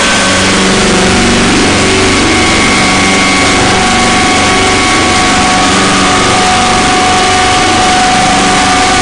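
Harsh-noise drone music: a loud, dense wall of distorted noise with a few steady held tones running through it, much like an engine.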